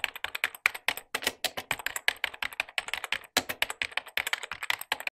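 Rapid typing on keys, many irregular clicks a second, with short pauses about a second in and just past three seconds in.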